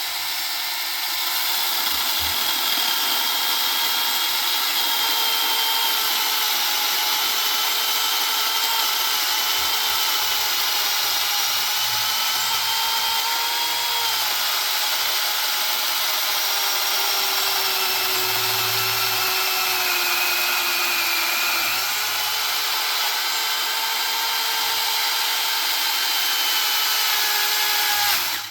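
Supstable mini chainsaw cutting into a thick log, its motor whining steadily as the chain bites the wood. Past the middle the pitch sags for a few seconds as the saw bogs down under load, then picks back up. The motor cuts off suddenly at the end.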